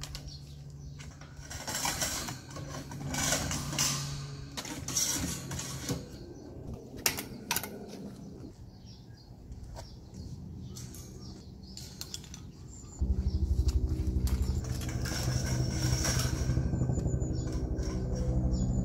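Metal wire shelving parts clattering and clicking as the shelf is assembled. About thirteen seconds in, a helicopter's rapid rotor thudding starts and becomes the loudest sound, holding steady.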